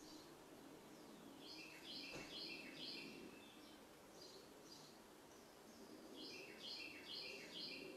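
A bird calling faintly in two bouts of quick repeated chirps, the first about a second and a half in and the second near the end, over a faint steady background hiss.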